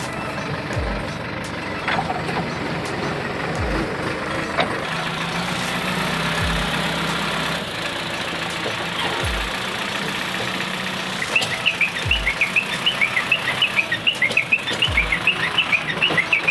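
JCB 3DX backhoe loader's diesel engine running steadily, with a low thud about every three seconds. From about eleven seconds in, many quick high chirps sound over it.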